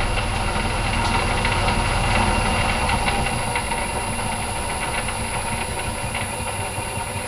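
Myford Super 7B lathe running in back gear, driven by a three-phase motor on an inverter (VFD), slowing gradually as the drive frequency is turned down from 60 Hz. Its running noise eases a little as the spindle falls from about 105 to about 70 rpm.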